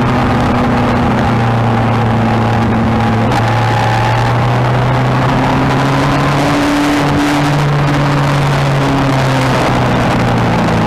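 Motorcycle engine running at a steady pitch, shifting up and down a few times, over a continuous rushing noise.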